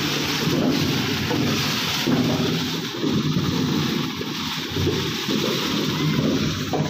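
Potatoes pouring out of a bulk bag's bottom spout onto a heap in a trailer: a steady, dense rumbling clatter of tubers tumbling over each other.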